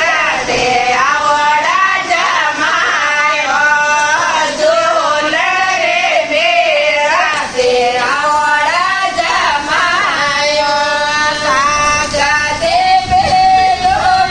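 High female singing voice performing a Marwari jamai sa geet, a traditional Rajasthani wedding song (gaaliyan) teasing the son-in-law, in a continuous melody with long held notes.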